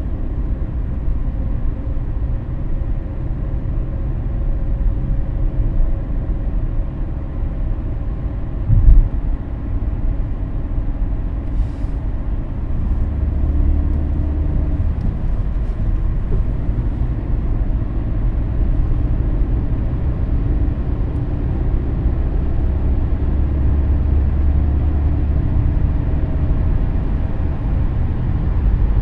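A car driving: a steady low rumble of engine and road noise, with engine tones shifting slightly in pitch, and a brief loud thump about nine seconds in.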